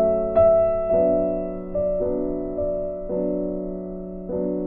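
Soft background piano music, a new note or chord struck about once a second over a held low note.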